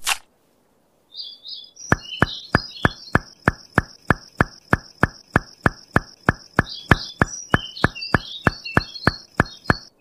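A short whoosh at the start, then steady knocking at about four knocks a second, with bird chirps over it.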